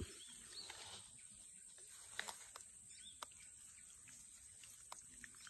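Near silence: faint outdoor ambience with a steady high insect drone and a few scattered sharp clicks.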